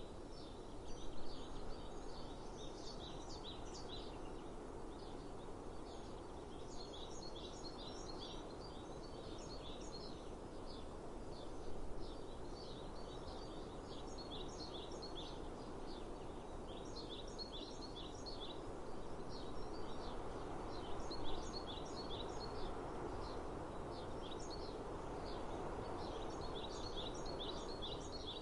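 Small songbirds chirping in repeated quick bursts of high notes, a new phrase every few seconds, over a steady outdoor background hiss. A few brief louder sounds stand out about a second in, near the middle and about two-thirds through.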